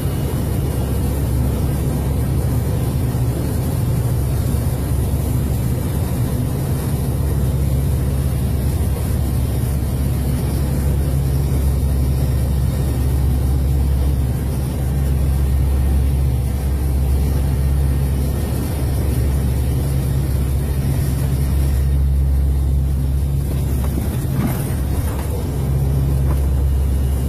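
Steady drone of an aircraft's engines heard inside the cockpit: a deep constant hum with an even rushing noise over it.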